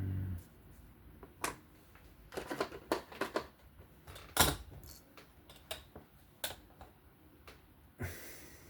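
Irregular light clicks and taps of small folding-knife parts and tools being handled on a work surface, with a short scrape near the end.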